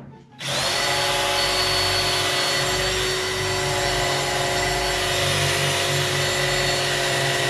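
Electric drill running steadily with a motor whine, starting about half a second in, its bit pressed into thick sheet steel and barely cutting through. He suspects the bit is dull.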